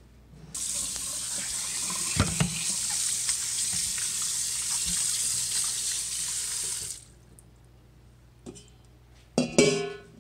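Kitchen tap running into a stainless steel sink for about six seconds while fish pieces are rinsed under it, with a couple of knocks about two seconds in. The water shuts off, and near the end comes a brief loud clatter.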